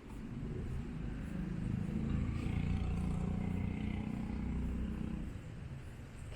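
A motor vehicle driving past on the street: its engine and tyre rumble swells from about a second in, is loudest in the middle, and fades away near the end.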